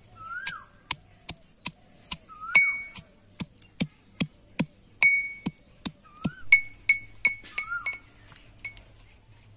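Pestle pounding garlic cloves in a heavy black mortar: a steady run of sharp clinks, about two to three strikes a second, some leaving a brief ringing note.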